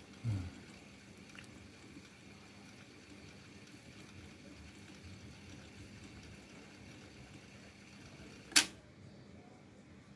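Sony TC-K77R cassette deck's transport controls being operated: a soft thump just after the start and one sharp click about eight and a half seconds in, over a faint steady hiss.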